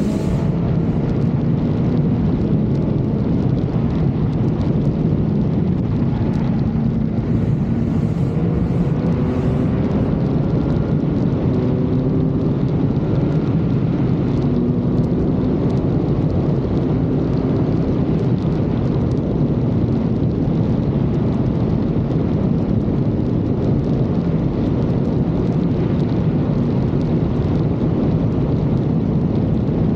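Kawasaki Z900's inline-four engine running under way, its note holding steady with small rises and dips as the throttle changes, under heavy wind rush on the microphone.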